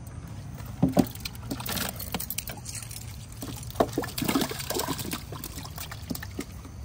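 Water splashing and sloshing in short bursts, about a second in and again in a cluster around four to five seconds in.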